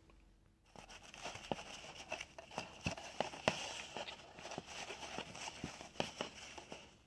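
Paintbrush stroking paint onto a glove: a scratchy brushing hiss with many irregular light ticks, starting about a second in.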